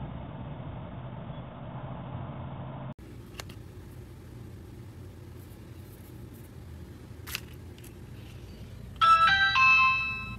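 A steady low hum and hiss stop abruptly about three seconds in, leaving near quiet with a few faint clicks. About nine seconds in, an electronic doorbell chime plays a short melody of several bell-like notes.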